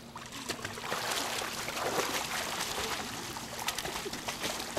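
Swimming-pool water splashing and sloshing as a dog paddles and swims.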